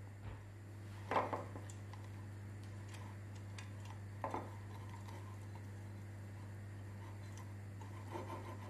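Light knocks and clicks on a metal muffin tin as it is greased with an oil bottle and a silicone pastry brush: a sharper clack about a second in, a quick double tap midway, and a few soft taps near the end, over a steady low hum.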